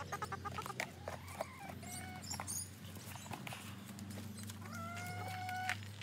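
Domestic hen clucking in short calls, then a longer drawn-out call near the end, with scattered small clicks. The track is sped up, so the calls sound higher and quicker than normal.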